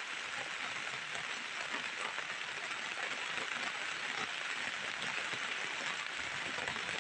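Heavy rain falling steadily on a metal platform and a plastic umbrella.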